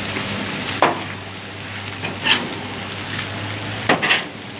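Ribeye steaks and pork loin chops sizzling steadily on a hot gas grill, with a few brief louder sounds over the sizzle.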